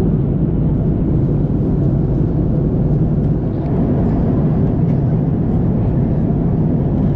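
Steady low rumble inside the cabin of an Airbus A330-200 in cruise: engine and airflow noise heard from a window seat.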